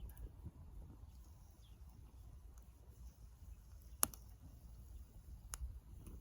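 Small wood fire crackling faintly, with two sharp pops about four and five and a half seconds in, over a low rumble.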